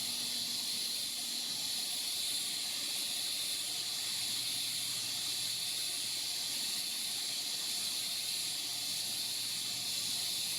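TIG welding arc burning steadily, a constant hiss with a faint high whine, as a bead is laid by walking the cup.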